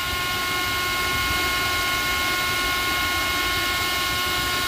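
Pro's Choice X-5000 ozone machine running: its motor whines at a steady pitch over an even hiss.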